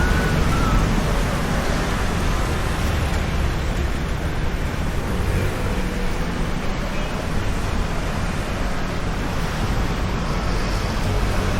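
Steady city street traffic noise: a continuous rush of passing vehicles with a heavy low rumble.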